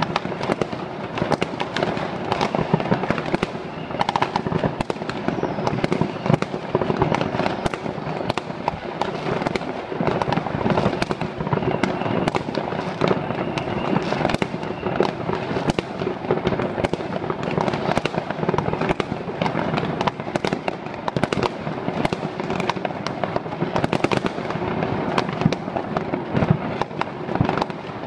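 Many fireworks and firecrackers going off at once across a city, a dense, unbroken crackle of overlapping bangs with no pause.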